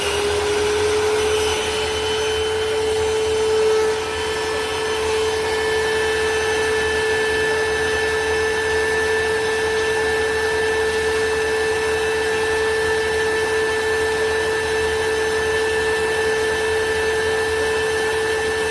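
Powools cordless handheld vacuum running, a small motor whine that settles to a steady pitch in the first second and holds it over a steady rush of air.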